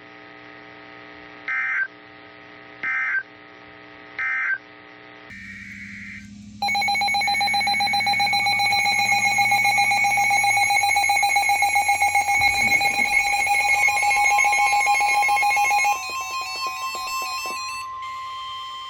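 Emergency Alert System signalling over a steady hum: three short data bursts, the end-of-message code closing the previous warning, then a loud, steady, buzzy alert tone lasting about nine seconds. The alert tone gives way to a quieter single steady tone near the end.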